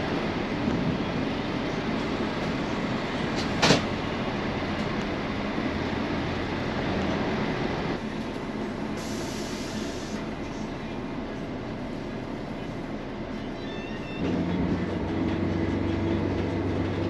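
Steady rumbling vehicle noise, with a sharp knock about four seconds in and a short hiss around nine seconds. A louder steady low hum starts near the end.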